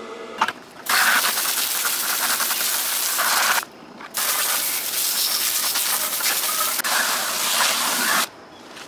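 Garden hose spray nozzle blasting water into a plastic bucket to wash out hardening thinset mortar: a steady hissing splash that starts about a second in, stops for about half a second near the middle, then runs again until shortly before the end.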